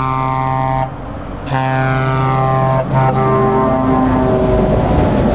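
A truck's air horn sounding two long blasts with a short break between them. The second blast sags slightly in pitch and fades as the noise of the passing truck rises.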